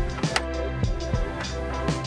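Background music with a steady beat: sustained notes over regular drum hits.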